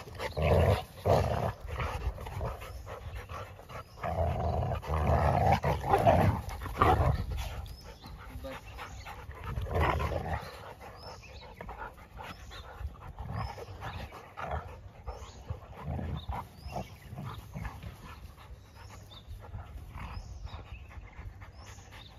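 Labradors play-fighting: loud bouts of growling and scuffling in the first half, dying down after about ten seconds into panting and lighter scuffles.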